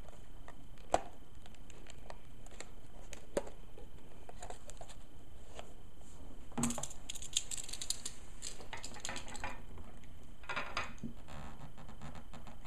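Clicks and taps, then a run of crackling and clicking from a stiff plastic blister pack being handled, about six and a half seconds in and again near ten and a half seconds.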